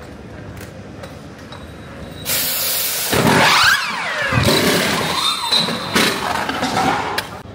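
Pneumatic wheel guns of a Formula 1 pit crew firing during a pit stop: loud hissing compressed air with falling whines. The sound starts about two seconds in and comes in several surges before stopping shortly before the end.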